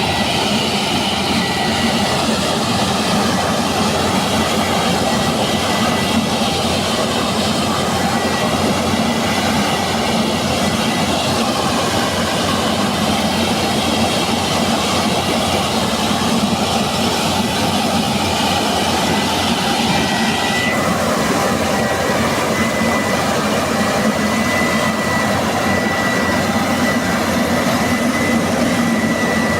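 Combine harvester running under load: a dense, steady engine and machinery noise with a continuous high whine. About two-thirds of the way through, the hissing upper part of the noise cuts off suddenly, and the engine and the whine keep going.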